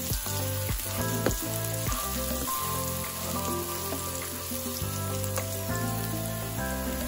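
Minced garlic and ginger sizzling in hot coconut oil, with a spatula scraping and clicking against the pan now and then. Soft background music with held chords plays underneath.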